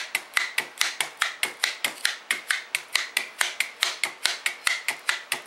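Jaccard handheld blade meat tenderizer pressed repeatedly into a steak, clicking about four times a second as its spring-loaded blades push out and retract.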